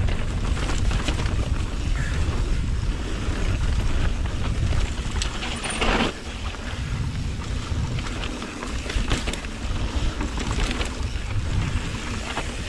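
Mountain bike riding fast down a rough trail: a steady wind rumble on the action camera's microphone, with scattered clicks and knocks of the bike rattling over rocks. The loudest knock comes about six seconds in.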